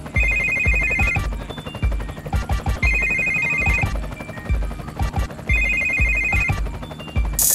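Hip-hop beat intro: a trilling telephone ring, about a second long, repeats three times about two and a half seconds apart over heavy bass hits. A bright crash comes in near the end as the full beat drops.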